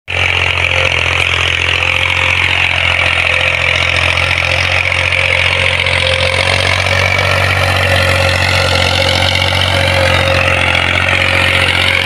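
Tractor engine running steadily at an even pitch, unchanging throughout.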